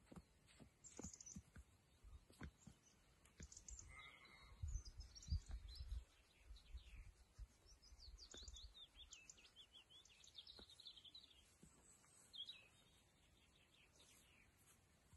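Faint birdsong, many short chirps and trills, with scattered light clicks. The loudest part is a low muffled rumbling about four to six seconds in.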